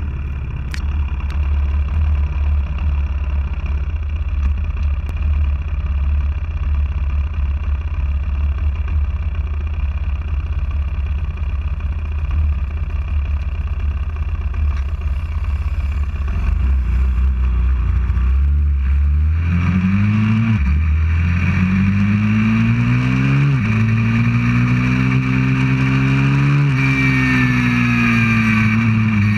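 190cc pit bike's single-cylinder four-stroke engine idling with a steady low note, then about two-thirds through it pulls away, revving up through the gears with two shifts and holding a higher steady pitch.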